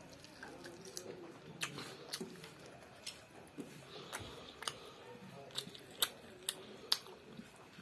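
A child chewing a mouthful of rice and meat curry with the mouth open, giving a run of sharp, irregular wet mouth smacks and clicks.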